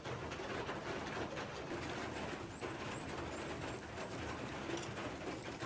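Outdoor ambience: a steady hiss, with a short run of faint, high bird chirps about two to three and a half seconds in.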